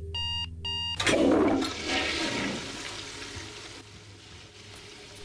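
A toilet flushes about a second in: an abrupt gushing rush of water that fades slowly over the following few seconds. Before it, an electronic alarm-clock beeping cuts off.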